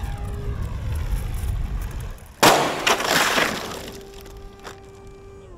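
RC model jet's turbine whining with falling pitch, then a loud crash about two and a half seconds in as the model hits the ground, a burst of impact and clatter lasting about a second. A steady tone follows.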